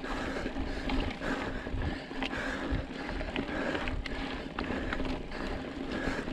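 Mountain bike rolling over a rocky gravel trail: a steady rumble of tyres on loose stones, with scattered sharp clicks and rattles from the bike over the bumps.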